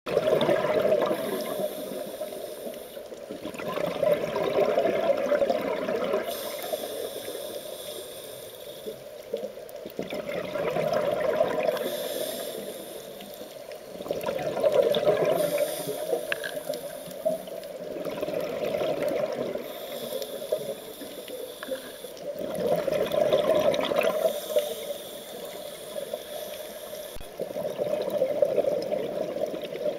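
Scuba diver breathing through a regulator underwater: slow breaths every four or five seconds, each inhale a hiss, each exhale a loud rush of gurgling bubbles.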